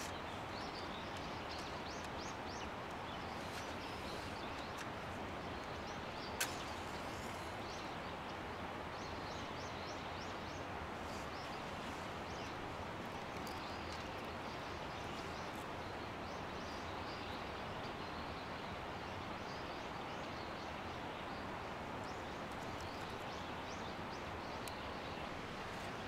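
Outdoor nature ambience: a steady rushing hiss, with repeated short, high chirping calls over it and a single sharp click about six seconds in.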